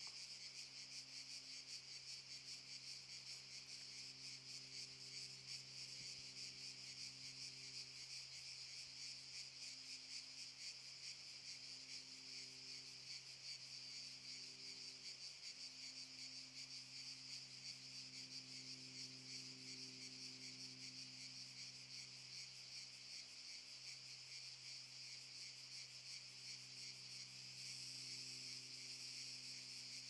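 Cicadas singing in pine trees: a dense, steady, finely pulsing chorus, with a faint low hum underneath.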